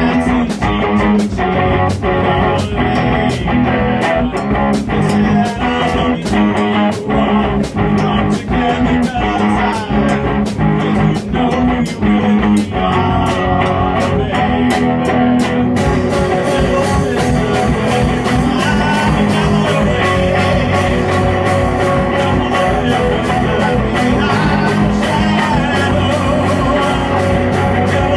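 Live rock band playing: two electric guitars, a drum kit keeping a steady beat, and a singer on the microphone. About halfway through, the cymbals open up and the sound gets brighter.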